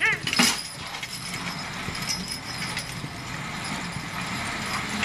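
Team of draft horses pulling a loaded dynamometer truck: a brief shouted call and a sharp clank about half a second in, then a steady mechanical hum from the truck's hydraulic pump, which brakes the truck and holds the load, under the horses' hoof steps on dirt.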